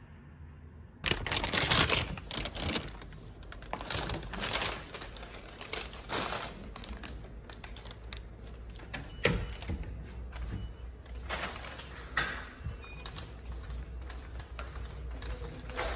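Irregular clicks, clatter and knocks that start suddenly about a second in and are loudest at first, then scattered and uneven, over a low steady hum.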